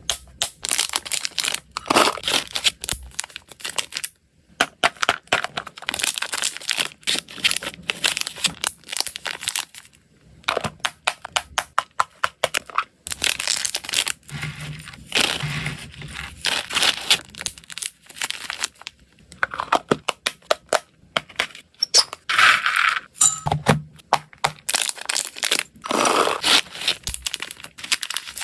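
Small plastic snack bags crinkling as they are handled, amid many short sharp clicks and taps from handling plastic packaging and a lidded plastic food container.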